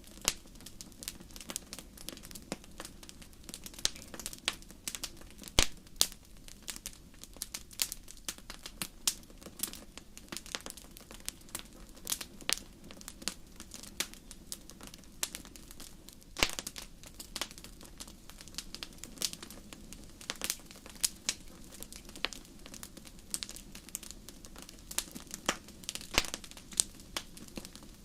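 Fire crackling: a steady stream of irregular pops and snaps, some much louder than others, over a low steady rush from the flames.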